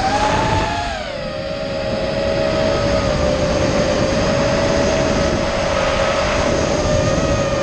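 Electric motors and propellers of an FPV racing quadcopter whining, heard from its onboard camera, over a rushing noise. The pitch drops about a second in as the throttle eases, holds steady, and begins to rise again near the end.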